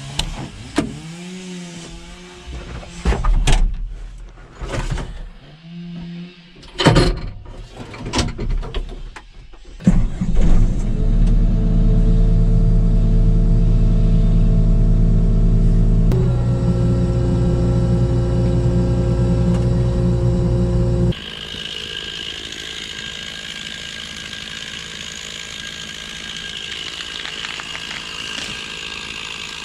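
Hydraulic excavator's diesel engine running steadily after some irregular clunks and bursts of noise, its pitch shifting about halfway through. Near the end of the second third it cuts abruptly to a chainsaw running steadily.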